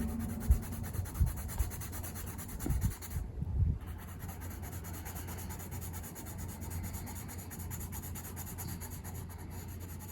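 A colouring tool rubbing and scratching steadily across a paper page, with a few soft knocks in the first four seconds.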